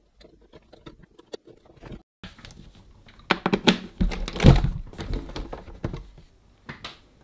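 Handling noise from a plastic suitcase record player: small plastic clicks as the cartridge is fitted to the tonearm, then a run of knocks and thuds as the case is tipped up and set back down, loudest about four seconds in.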